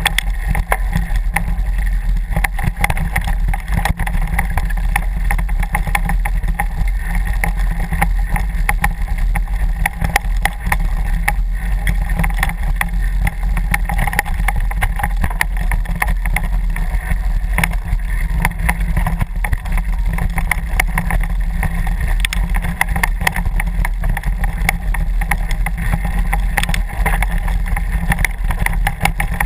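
Mountain bike riding over a rough forest trail: steady wind buffeting on the microphone with a constant rattle and clatter of small knocks from the bike over the ground.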